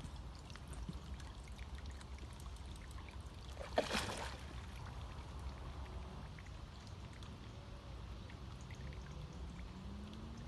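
A short burst of water sound about four seconds in, over a steady low rumble with faint scattered clicks.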